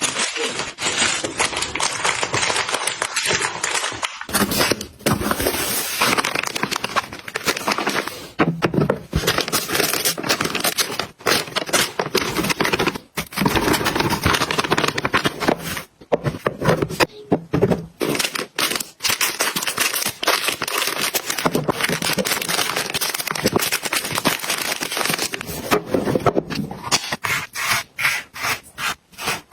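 Crinkling and rustling of packaging as items are handled, with many irregular clicks and taps.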